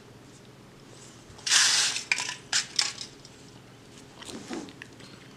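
Yellow plastic Kinder Surprise toy capsule being handled and pried at to open it: a short scraping rustle about a second and a half in, then a few sharp plastic clicks.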